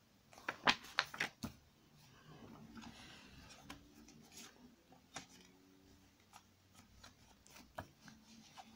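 A CD jewel case and its paper booklet being handled, with a quick run of sharp clicks and taps in the first second and a half. Soft paper rubbing and a few scattered clicks follow.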